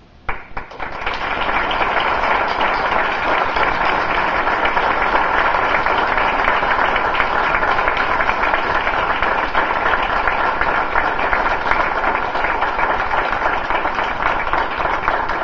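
Audience applauding: many hands clapping, starting sharply, holding steady and beginning to die away near the end.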